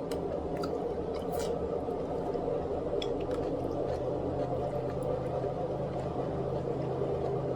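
Steady household background hum from a running appliance, with a few brief clicks and soft squishy eating sounds over it.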